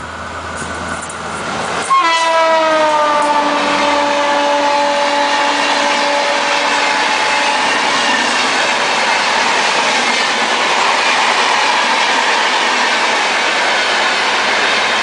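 Diesel locomotive of an express passenger train running through at speed. It blasts its horn about two seconds in, and the horn drops in pitch as the locomotive passes and fades over the next few seconds. After that comes the steady rush and rumble of the passenger coaches going by on the rails.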